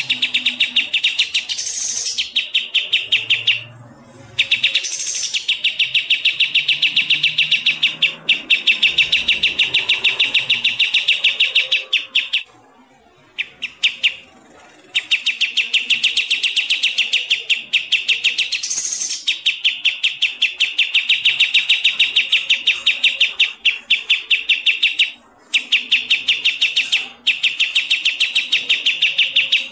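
Recorded songbird song: a high chirp repeated fast and evenly in runs of several seconds, broken by a few short pauses.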